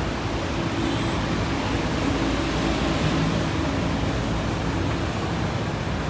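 Steady street traffic noise with the low hum of a car engine.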